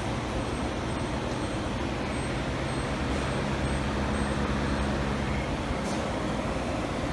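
Lasko pedestal fan running, a steady rush of air with a low motor hum that swells slightly midway, the airflow blowing across the microphone.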